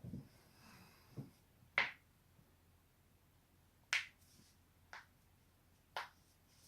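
Spinal joints cracking: a dull low thump at the start, then a series of about five short, sharp pops spaced a second or two apart, the loudest near two seconds in.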